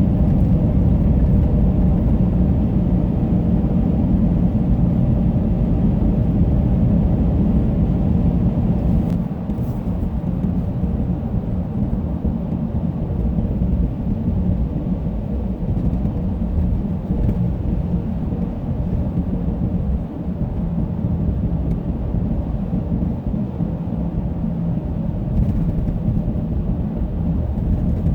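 Road noise inside a car driving on snow-covered roads on studded winter tires: a steady low rumble with the engine under it. It drops somewhat about nine seconds in.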